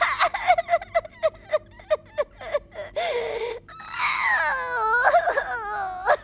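A performer's voice fake-crying as a kitten puppet in a tantrum: a run of short sobbing gasps, then a long drawn-out wail about four seconds in.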